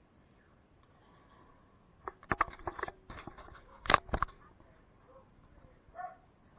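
A quick clatter of sharp clicks and knocks lasting about two seconds, the loudest about four seconds in.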